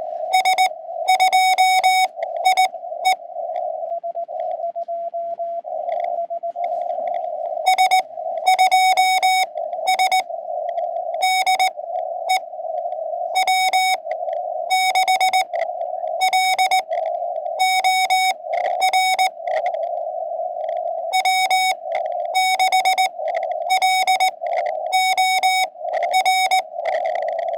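Morse code (CW) tones from a portable QRP ham radio, keyed on and off in clusters of dots and dashes. They sound over the steady hiss of the radio's narrow CW audio filter, with a fainter, slightly lower-pitched signal from another station in a pause a few seconds in.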